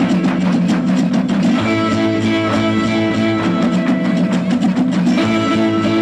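Mexican folk dance music with strummed guitars over a steady beat.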